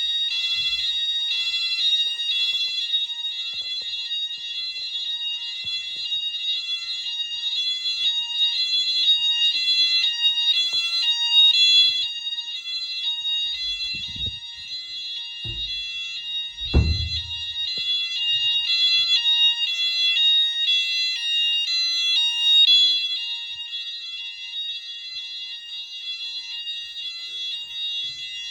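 Nittan fire alarm sounder going off during a weekly alarm test: a loud, continuous, high-pitched electronic tone. There are a couple of dull thumps about halfway through, and the alarm is slightly quieter near the end.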